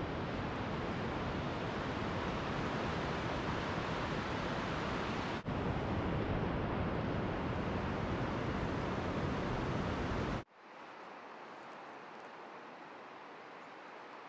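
Steady ocean surf with wind. It cuts off abruptly twice, about five and ten seconds in, and after the second cut a much quieter, softer outdoor ambience continues.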